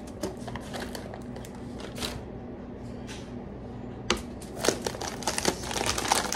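Plastic cookie-dough wrapper crinkling and rustling with scattered small clicks as hands pull chunks of refrigerated dough apart. The crinkling gets busier and louder from about four seconds in, over a steady low hum.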